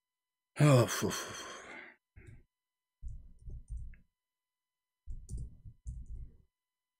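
A man's loud, drawn-out voiced sigh about half a second in, followed by two short runs of computer-keyboard typing about three and five seconds in, as an Arabic search is typed into a website.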